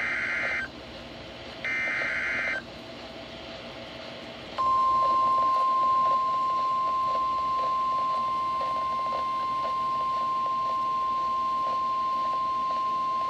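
NOAA Weather Radio receiver sounding a tornado warning alert. First come two buzzing SAME data bursts, each about a second long and a second apart. After a short gap, the single long, steady warning alarm tone starts about four and a half seconds in and holds; it is the tone that comes just before the National Weather Service reads a tornado warning.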